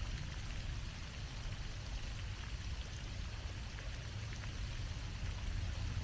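Pond fountain jet spraying up and splashing back onto the water: a steady hiss of falling water over a constant low rumble.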